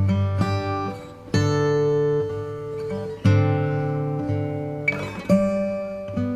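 Background music: acoustic guitar strummed in slow chords, a new chord struck every second or two.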